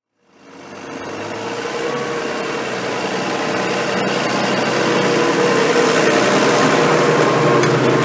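New Holland T7.200 tractor engine running steadily as it pulls a reversible plough and passes close by, growing louder over the first few seconds and then holding steady.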